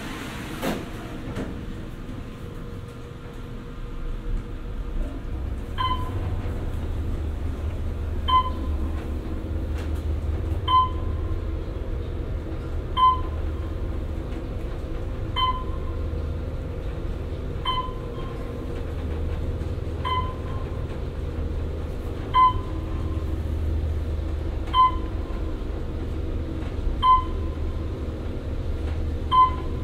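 Otis traction elevator heard from inside the car: the doors shut with a knock under a second in, then the car rides up with a steady low rumble. A short beep sounds about every two and a half seconds, once for each floor the car passes.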